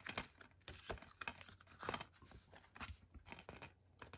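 Art cards and a paper booklet being handled: faint, scattered paper and card rustles and light taps.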